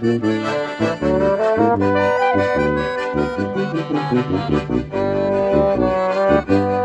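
Small band of tuba, slide trombone, clarinet and two piano accordions playing an instrumental tune together, the trombone carrying held melody notes over a pulsing tuba bass line.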